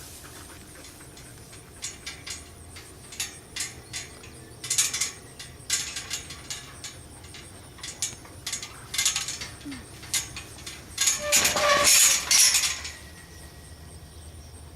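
Irregular metallic clicks and rattles, building to a loud, dense clatter about eleven seconds in that lasts a couple of seconds.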